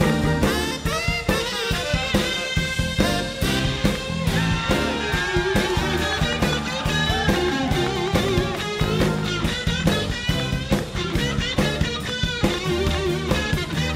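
Jazz-fusion band playing live: electric guitar lines over a busy drum kit, with saxophone.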